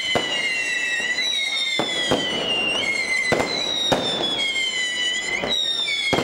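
Daytime fireworks: several whistling shells, each a long, slowly falling whistle that overlaps the next, with sharp cracks going off every second or so.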